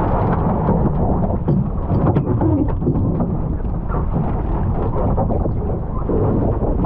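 Wind buffeting the microphone in a steady low rumble, with water splashing and slapping against a GP14 sailing dinghy's hull as it sails through waves.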